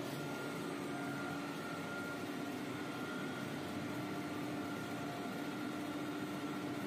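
XY-AI-500 maxi-roll paper band saw cutting machine running with a steady mechanical hum, two steady tones over an even hiss.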